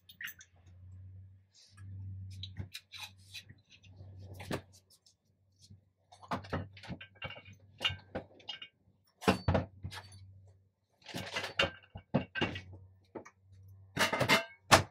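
Knocks, clicks and clatter of cookware and utensils being handled at a stove, the loudest knock near the end, over a low hum that comes and goes.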